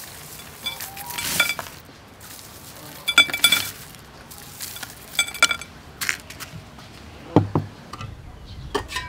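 Crushed ice clinking against a glass bowl and a cut-glass plate as it is scooped by hand onto torn napa cabbage: three short runs of clinks with a light glassy ring, about one, three and five seconds in.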